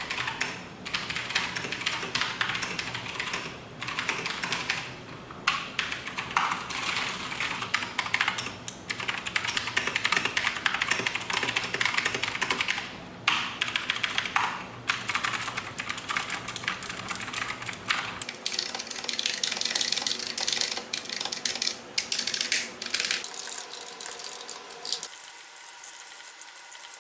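Typing on a Keychron mechanical keyboard: a fast, dense run of key clicks. The sound of the typing changes about 18 seconds in, and the keystrokes grow sparser near the end.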